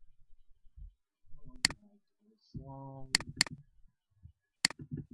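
Computer mouse clicking: sharp single clicks and a quick pair of clicks, with a person's voice speaking quietly between them.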